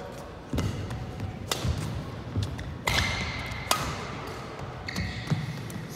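Badminton rally: about half a dozen sharp racket strikes on a shuttlecock, roughly one a second, with short high squeaks from shoes on the court floor.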